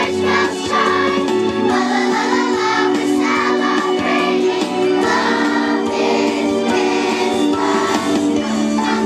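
Children's choir singing a Christmas song over a steady instrumental backing track.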